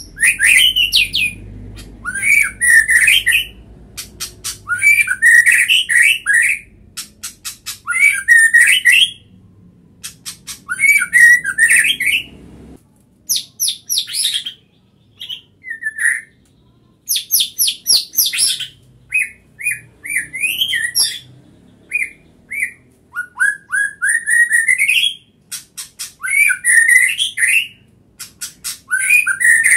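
White-rumped shama singing loudly in varied phrases: rich whistles that sweep up and down, mixed with fast rattling clicks, each phrase a second or two long with short pauses between.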